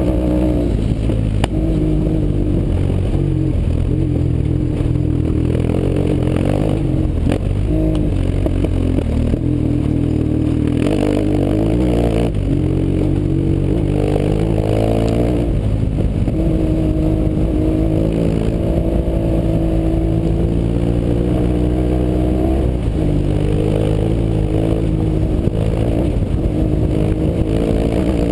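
BMW R 1150 GS flat-twin boxer engine running through an aftermarket Fresco exhaust, revs rising and falling with throttle while riding on gravel, with some clatter and scrape from the loose surface.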